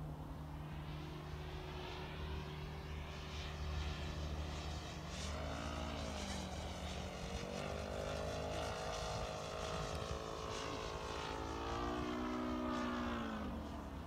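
Radio-controlled Seagull Extra 300 model aerobatic plane flying overhead, its engine and propeller making a steady drone. The pitch dips and climbs again about six seconds in, holds higher, then falls away near the end as it throttles and passes.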